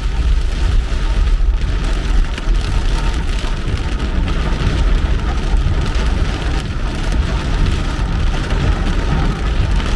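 Rain falling on a moving car over a steady low rumble of the car and its tyres on the wet road.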